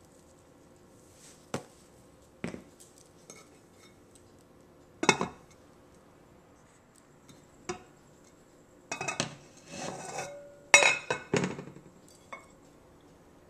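Glass pot lid and kitchen utensils clinking and knocking against a stainless steel pan: a few separate knocks, then a run of clattering in the last few seconds.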